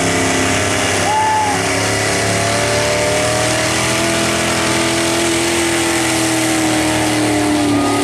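Engine of a lifted mud-bog pickup on tall mud tires running hard at high revs as it churns through a flooded mud pit. The engine pitch climbs over the first few seconds, then eases down near the end.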